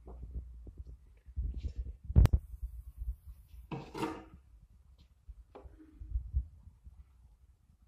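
Irregular low thumps and knocks, with one sharp click a little over two seconds in.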